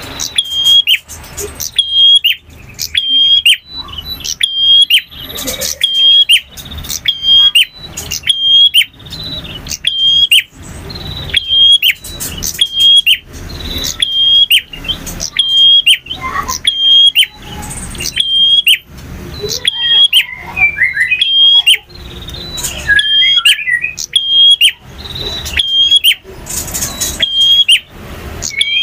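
Male bar-winged prinia (prenjak) singing loudly: sharp, ringing chirps repeated about once or twice a second, broken by a quick run of twittering notes about two-thirds of the way through.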